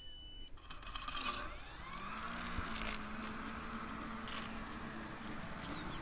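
Mammotion Luba 5000 AWD robot lawn mower resuming its mowing job: a short scraping rustle about a second in, then its motors spin up with a rising whine and settle into a steady hum with a high hiss.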